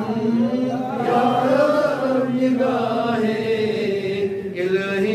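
A man's voice chanting a munajaat, a devotional supplication, slowly and melodically, drawing out long held notes.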